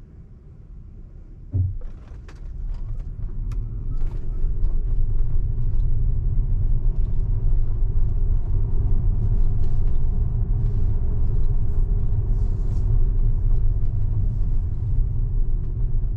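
Tyre and road rumble heard inside a Tesla's cabin as it drives, growing louder over the first few seconds, with a single thump about a second and a half in.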